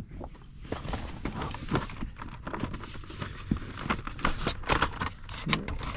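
A run of irregular clicks, knocks and rustles from the hard plastic housing of a car instrument cluster being handled.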